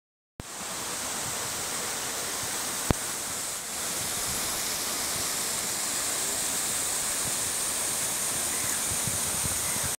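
A tall, thin waterfall falling from a high cliff: a steady rush of water that starts abruptly after a brief silence. One sharp click about three seconds in.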